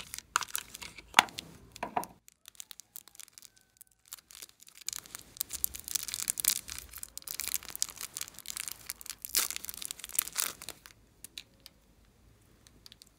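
Plastic wrapping crinkling and tearing as a small packet is pinched and pulled open by hand, in two spells of dense crackling: about two seconds at the start, and a longer one from about five seconds in to about eleven.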